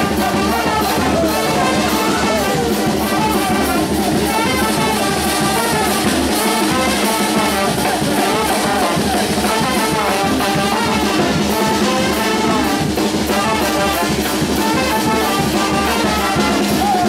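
A charanga brass band playing: trumpets and trombones over a sousaphone, with bass drum, cymbal and snare drum keeping a steady beat.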